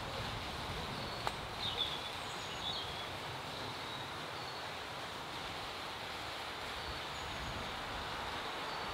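Outdoor garden ambience: a steady hum of distant traffic. A few short bird chirps come about two seconds in, and a single sharp click comes just over a second in.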